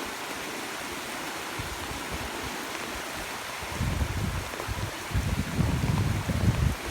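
Floodwater rushing steadily over the flooded field banks, with low irregular buffeting rumbles joining from about four seconds in.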